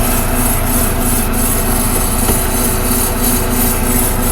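Steady machine hum and hiss with a faint note pulsing about four times a second, and a few light clicks.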